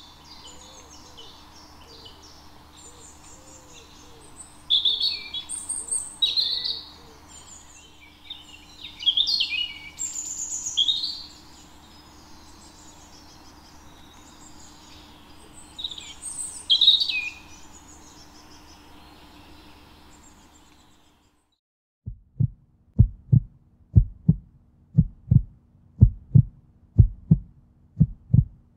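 Songbirds singing in short chirping phrases over a faint steady background. About 21 seconds in they cut off, and after a brief gap a heartbeat starts: a steady pulse of low thumps, about two a second.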